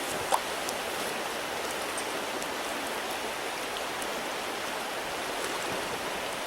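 Steady rush of a small stream's water running over rocks, with one brief click about a third of a second in.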